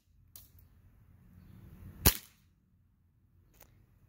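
A WE-Tech Desert Eagle gas blowback airsoft pistol, running on propane, fires a single shot about two seconds in: one short, sharp crack of the shot and the metal slide blowing back. There are a couple of faint clicks before and after the shot.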